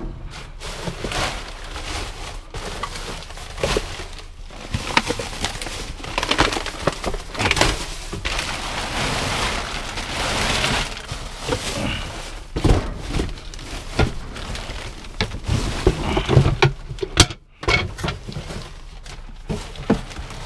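Plastic garbage bags crinkling and rustling as they are pulled about and shifted by gloved hands in a dumpster, with scattered knocks from trash being moved.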